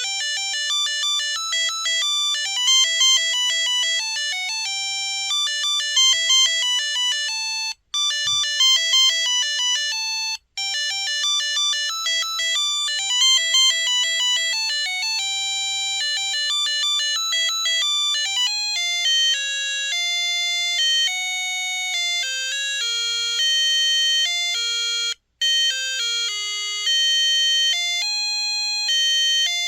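Samsung Anycall SCH-X140 mobile phone playing monophonic ringtone melodies: single beeping notes one at a time in quick tunes, with short breaks about 8, 10 and 25 seconds in.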